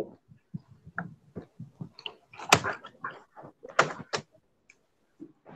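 A string of irregular knocks and clicks, the loudest about two and a half seconds in and a pair near four seconds in.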